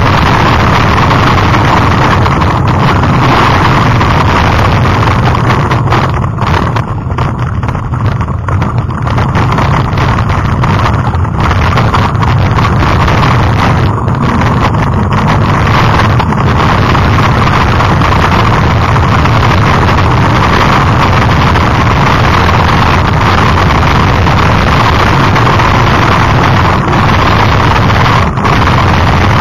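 Loud, steady wind noise on the camera microphone of a mountain bike descending a gravel trail, mixed with the rattle and crunch of tyres on loose stones. It eases briefly about six seconds in.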